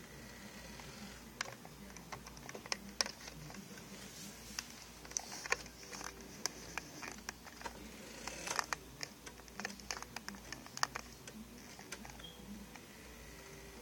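Small plastic clicks and taps from an NKOK RC toy garbage truck and its controls, coming irregularly throughout, with a small electric motor whirring high in short spells around the middle.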